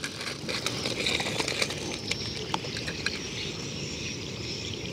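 Loose crushed-rock gravel clicking and crunching as a toy car is pushed over it and handled, with scattered small clicks over a steady background hiss.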